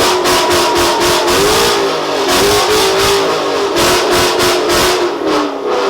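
A Ford Mustang's engine revving hard and loud, its pitch rising and falling again and again, with runs of sharp crackles over it.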